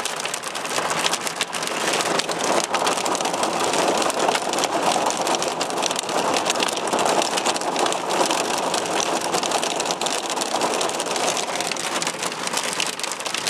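Small hailstones mixed with rain pelting a car's body and windows in a dense, steady clatter of fine ticks.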